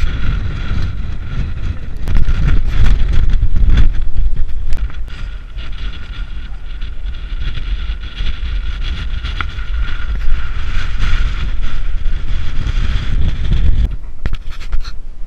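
Strong wind buffeting the microphone in uneven gusts, with a steady high whistle over the rumble that stops near the end.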